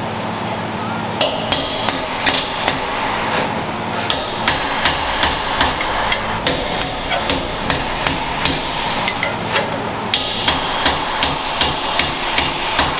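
Hammer driving a steel chisel against a Ford Fiesta ST wheel hub clamped in a bench vise: a steady run of sharp, ringing metal-on-metal blows, about two or three a second, with a short pause about nine seconds in. The chisel is working the old wheel bearing race off the hub.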